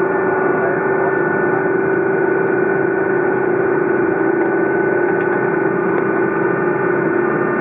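Airbus A330 jet engines running at low taxi power, heard inside the cabin over the wing: a steady low hum and a higher whine over rolling noise.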